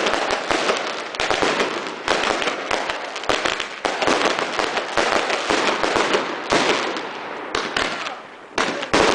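Fireworks going off in a dense, continuous crackle of many sharp bangs, rising and falling in surges about every second, with a sudden loud burst near the end.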